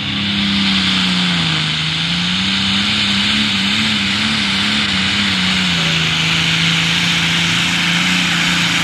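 John Deere super stock pulling tractor's turbocharged diesel engine running hard under full load as it drags the sled. The engine note dips about a second and a half in, climbs and wavers, then settles slightly lower from about six seconds on.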